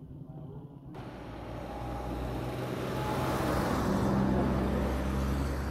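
A motor vehicle passing close by: engine hum and road noise build up from about a second in, are loudest near four seconds, then begin to fade.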